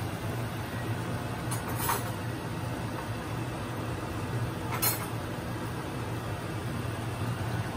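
Pork steak simmering in broth in a non-stick pan, a steady bubbling hiss over a low hum. Two light clicks stand out, about two seconds in and again about five seconds in.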